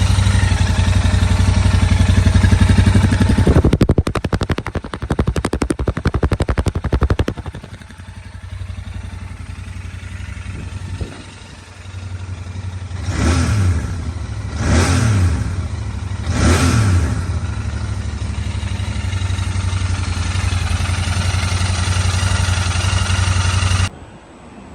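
Royal Enfield Interceptor 650's 648 cc parallel-twin engine running through its exhaust: a steady idle, then a few seconds of loud uneven pulsing, then three quick throttle blips that rise and fall, then steady running again. The sound cuts off suddenly near the end.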